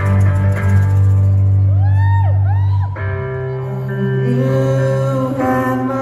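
Live rock band playing: electric guitar and bass with harmonica. About halfway through, the heavy bass drops away into a softer passage with held notes and singing.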